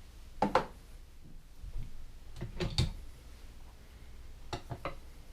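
A few short knocks and clicks in three small clusters, kitchen items such as the blender cup and utensils being handled; the blender motor is not running.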